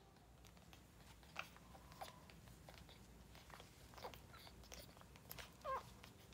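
Near silence with faint wet clicks and smacks of newborn puppies suckling at their mother, and one short squeak near the end.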